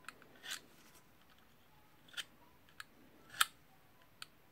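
A small blade scraping and picking carbon-brush dust out of the slots between the copper segments of a Bosch GSR 18V Li drill's armature commutator: about six short, faint scratches and clicks at irregular intervals, the sharpest about three and a half seconds in.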